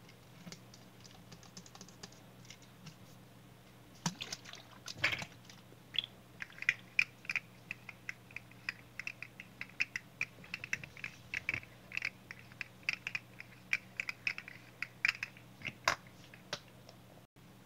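Rapid, irregular plastic clicking and clacking of a small toy being worked in the hands. It starts about four seconds in and stops near the end, over a faint steady hum.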